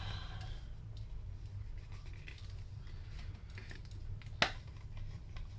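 A small cardboard product box being handled and opened: light taps, scrapes and clicks, with one sharp click about four and a half seconds in, over a low steady hum.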